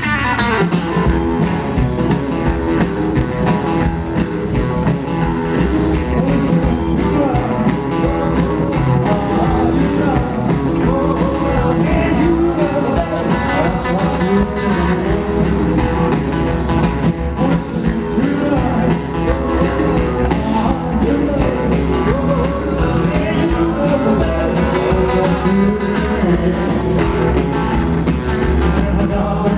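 Live rock and roll band playing: upright double bass, strummed acoustic guitar and hollow-body electric guitar, with a man singing over them.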